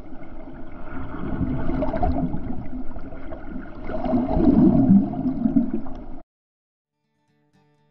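Cascading water rushing and splashing over rocks right at the camera. It swells twice and then cuts off suddenly about six seconds in.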